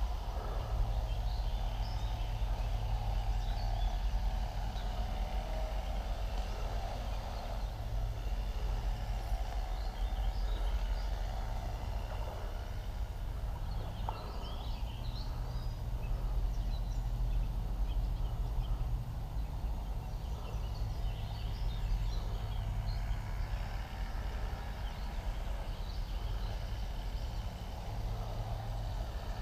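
Steady rush of river water with a low rumble, and many short bird calls scattered throughout.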